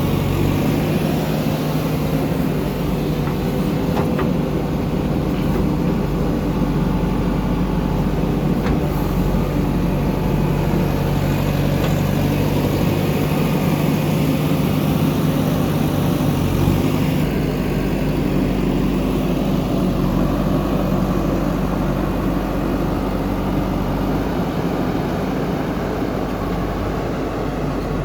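Heavy diesel engine of a JCB backhoe loader running steadily at an even pitch while it digs and loads mud.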